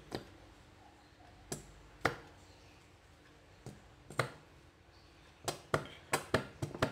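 Sharp knocks from a nearly empty chili sauce bottle being shaken and tapped to get the last of the sauce out. A few spaced knocks come first, then a quicker run of about three a second near the end.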